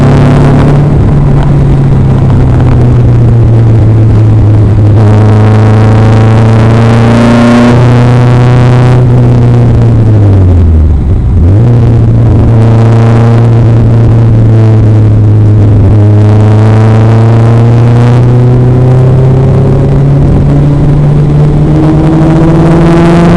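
Fisher Fury sports car's engine heard from inside the open cockpit at speed, revs climbing and dropping between gears. About ten seconds in the revs fall steeply, then rise steadily again.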